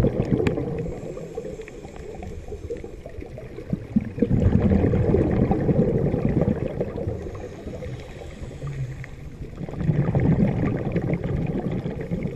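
Underwater: a scuba diver's exhaled bubbles gurgling and rumbling out of a regulator three times, about every five seconds, with quieter pauses between breaths.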